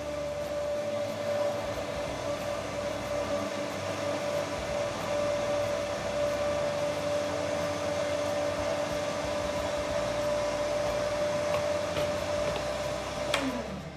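A 1,680-watt countertop blender blending a jug of ice, coffee and milk into a frappe. Its motor runs at one steady pitch, then winds down with a falling pitch near the end as it is switched off.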